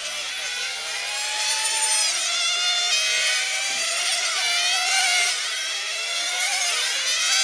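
Several 1/10 scale nitro RC cars' small two-stroke glow engines screaming at high revs, their overlapping whines rising and falling as the cars brake and accelerate through the corners.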